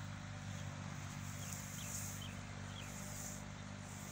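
Quiet outdoor ambience: a steady low hum, with a few short faint bird chirps about one and a half to two seconds in.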